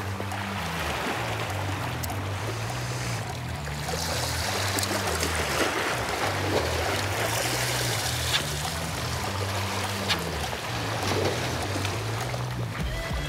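Background music with a stepping bass line over a steady wash of sea water, with a few short sharp ticks.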